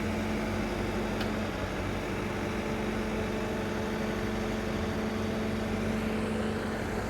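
Cat 325 excavator's diesel engine running steadily, a low even drone with steady tones over it.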